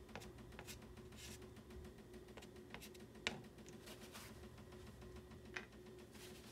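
Near silence: room tone with a steady low hum, broken by a few soft clicks and brief scratchy rustles; the sharpest click comes about three seconds in.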